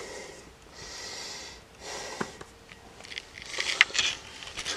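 A person breathing close to the microphone, a few soft sniff-like breaths about a second apart, then rustling and several sharp clicks of handling about three and a half seconds in.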